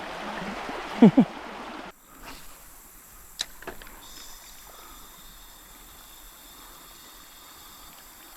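Shallow creek water running over rocks, with a brief grunt-like voice sound about a second in. The water sound cuts off abruptly about two seconds in, leaving a much quieter background with a single sharp click.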